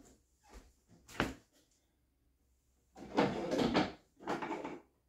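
Household handling sounds: a single sharp knock about a second in, then two longer stretches of clatter and rubbing from about three seconds in.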